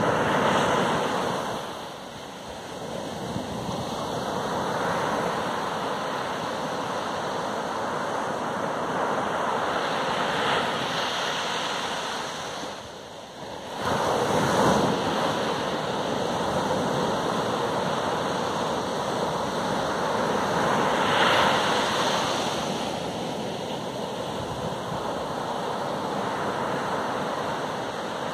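Ocean surf breaking on a sandy beach: a continuous wash of water that swells each time a wave breaks, every several seconds, with a brief lull about halfway through before the next wave crashes.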